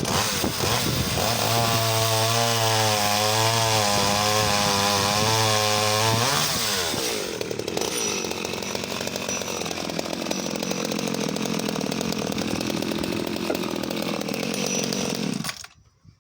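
Danarm 1-36 MK3 34cc two-stroke top-handle chainsaw running hard while cutting wood, its pitch held steady for about six seconds. It then drops to a lower, wavering note and cuts off suddenly near the end.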